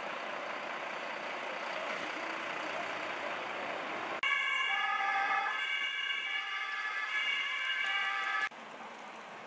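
Steady street and engine noise, then from about four seconds in an emergency vehicle's two-tone siren sounding loudly, its pitch alternating in steps, cut off abruptly after about four seconds.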